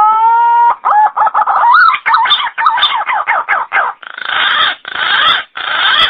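Green pigeon (punai) calling: a whistled note that rises and then holds steady, followed by a quick run of warbling, wavering notes, ending in three rougher, hoarse notes.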